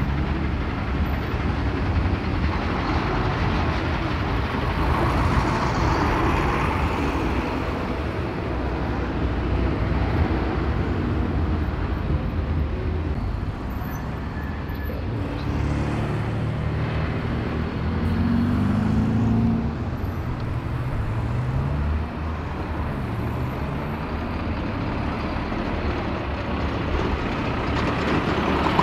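Road traffic passing close by: diesel lorries and cars driving past with a steady low rumble of engines and tyres. About two-thirds of the way in, one engine's note rises in steps and then falls away.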